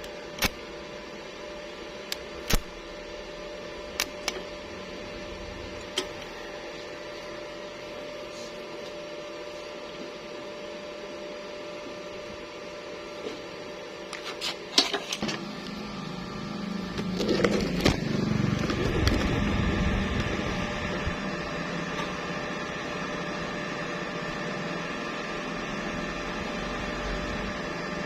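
Steady electrical machine hum with a few sharp clicks, then about halfway through a louder steady noise swells up and keeps going.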